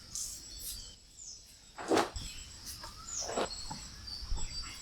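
A few short animal calls, spaced a second or more apart, over a steady high insect drone, with a couple of quick high falling bird chirps.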